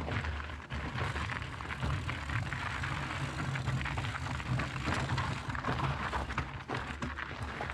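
Mountain bike riding over loose, rocky singletrack: tyres crunching on gravel, with frequent small rattles and knocks from the bike over the stones, over a steady low rumble of wind on the microphone.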